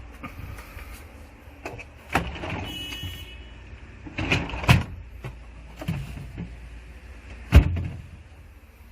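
Samsung Zipel refrigerator doors and drawers being opened and shut: a series of knocks and thuds over a low hum, the loudest thud near the end.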